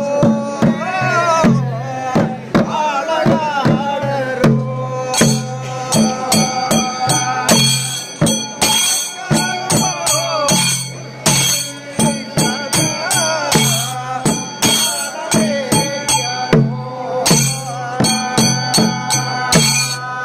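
Theyyam ritual percussion: drums and cymbals struck in a fast, dense rhythm with ringing metal. Over the first few seconds a wavering melodic line rises and falls above it.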